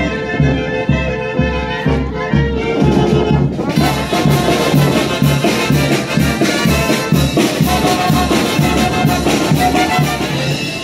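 Brass band playing: trumpets and trombones over a steady bass-drum beat, the sound growing fuller about four seconds in.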